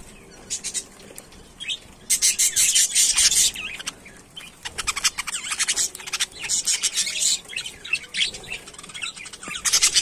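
Several budgerigars chattering together: fast, high chirps and warbles in bursts, loudest about two to three seconds in.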